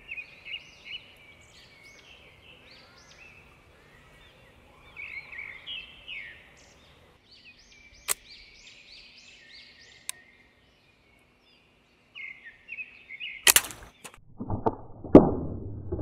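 Small birds chirping in short, repeated rising calls, with two sharp single clicks. Near the end comes a loud sharp snap, then a burst of heavy knocks and clatter, the loudest thing here.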